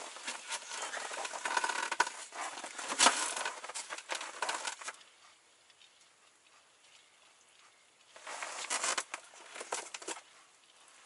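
Rustling and crunching of clothing and boots on packed snow as a person crouches and shifts, dense for the first five seconds, then quiet, with another shorter burst of rustling about eight seconds in.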